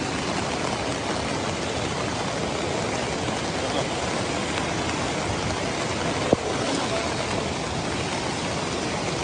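Floodwater rushing steadily in a dense, even hiss, with one sharp click about six seconds in.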